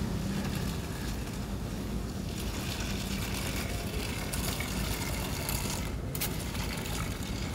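Wind buffeting the microphone outdoors: a steady, low rumbling noise, with a brief sharp click about six seconds in.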